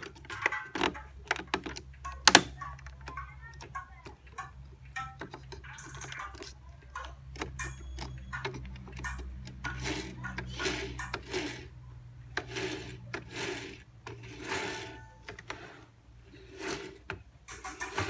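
Pioneer CDJ-400 jog wheel being spun and worked back and forth by hand: a run of short, irregular rubbing and scraping strokes over a steady low hum.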